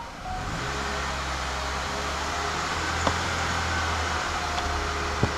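A steady machine hum with a fan-like rush starts up just after the beginning and runs on evenly, with a light click near the middle and another near the end.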